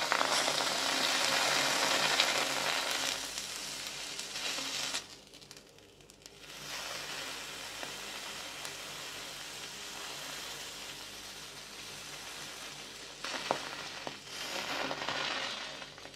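A red-hot knife blade sizzling as it melts into a clear, glitter-filled slime stress ball. The sizzle comes in three stretches: strongest for the first five seconds, then a longer, quieter one, then a short burst with a sharp click before it fades.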